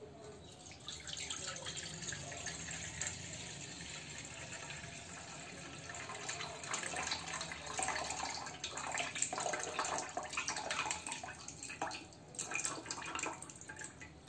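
Cloudy rinse water being poured off washed poha (flattened rice) from a steel bowl into a pan, trickling and splashing unevenly. It starts about a second in, runs heavier in the second half and trails off near the end.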